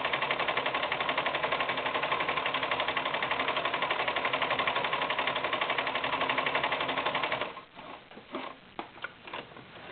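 Mid-1980s Brother VX household sewing machine stitching at a steady fast rhythm while sewing a reverse stretch stitch. It stops about seven and a half seconds in, followed by a few light clicks and knocks.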